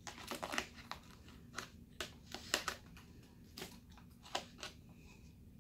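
White plastic spoon scraping and clicking in a black plastic takeout tray of fried rice, with chewing: a quick flurry of scrapes in the first second, then scattered sharp clicks.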